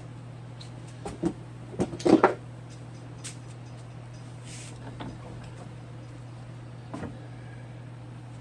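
Metal clicks and clanks as a hand brake-line flaring tool is loosened and handled, a few separate knocks with the loudest cluster about two seconds in and another near the end, over a steady low hum.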